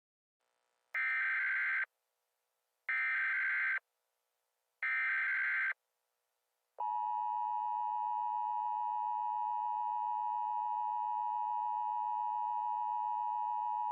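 Emergency Alert System signal: three short bursts of the SAME digital header, each just under a second with about a second between them, then the steady two-tone attention signal starting about seven seconds in. It announces an emergency alert broadcast.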